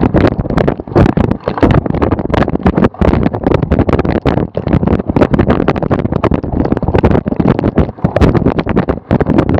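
Loud wind buffeting and rattle on an action camera mounted on a cyclocross bike riding over bumpy grass, the steady rush broken by many irregular knocks and jolts.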